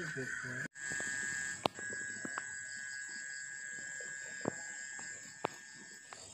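Insects trilling steadily in two high-pitched bands, with a brief dropout less than a second in and a few sharp clicks scattered through.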